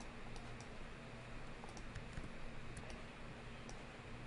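Faint, scattered clicks of a computer keyboard and mouse over a steady low hum.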